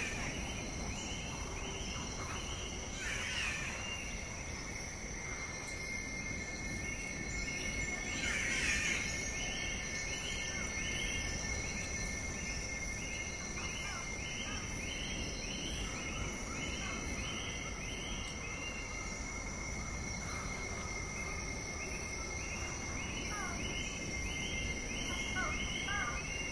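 Outdoor nature ambience: steady high-pitched insect trilling, with a regular chirping about twice a second that comes in runs and pauses, and a few short bird calls.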